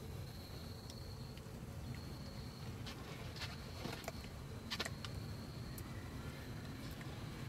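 An insect's steady high-pitched buzz that breaks off and resumes several times, over a low background rumble, with a few sharp clicks about three to five seconds in.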